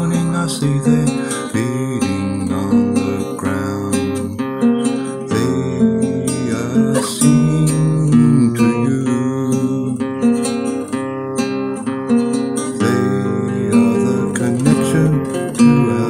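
Music led by a strummed acoustic guitar, playing steadily throughout.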